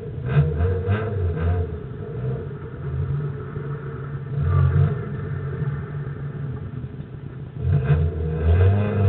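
Rallycross car engine heard from inside the cabin, running with a few throttle blips, then revving up near the end as the car pulls away.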